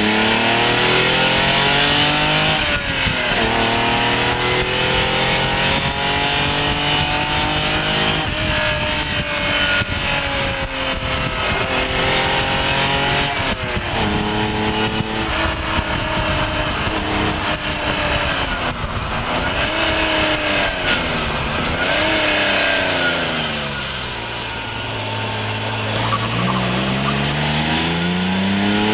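Lancia Stratos HF's Ferrari Dino V6 engine pulling hard through the gears. The pitch climbs steadily several times, each climb cut off by a sharp drop at an upshift. Later it falls away and quietens as the car slows and changes down, then climbs again near the end.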